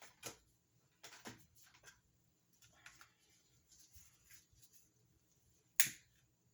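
Light handling noises at a work table: a few short rustles and soft taps, then one sharp click near the end.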